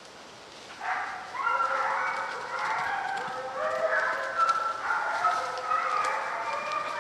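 A pack of hounds running a deer drive and baying: several dogs' long bawling calls overlap, starting about a second in and continuing steadily. This is the chorus of hounds pushing on a deer's trail.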